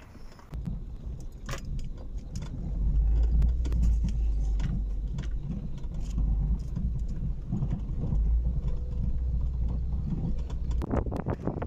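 Car driving slowly over a rough dirt road, heard from inside the cabin: a steady low rumble of engine and tyres, with frequent clicks, knocks and rattles from the bumps.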